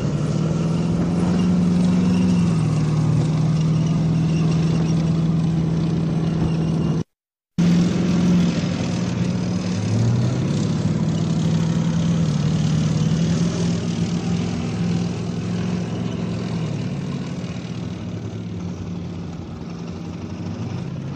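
Diesel engine of a K9 Vajra tracked self-propelled howitzer running as it drives over rough ground. The engine pitch shifts a couple of times and the sound fades gradually in the second half. The sound cuts out briefly about seven seconds in.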